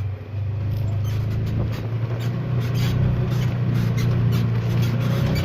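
A vehicle engine running steadily at low speed, a constant low hum.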